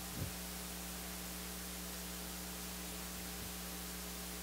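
Steady electrical mains hum with a faint hiss, the idle noise of the microphone and sound system.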